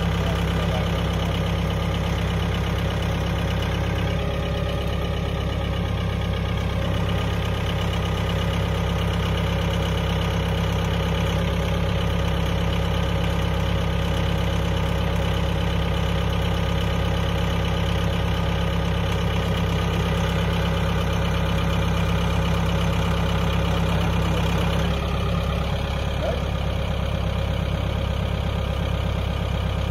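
Compact tractor engine running steadily while driving a post hole auger that is being lowered into the ground to dig a fence-post hole. The engine note shifts slightly about 25 seconds in.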